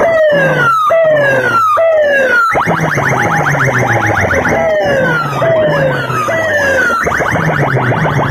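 Large DJ speaker boxes playing a loud electronic siren-effect competition track. It has falling pitch sweeps in runs of three, alternating with a fast buzzing pulse, over a pulsing bass.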